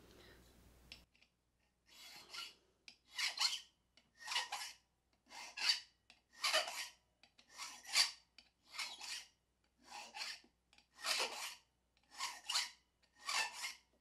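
Hand file rasping across a key blank in about eleven slow, even strokes, roughly one a second, starting about two seconds in. The file is cutting down the spot where the lock left an impression mark, to deepen that cut.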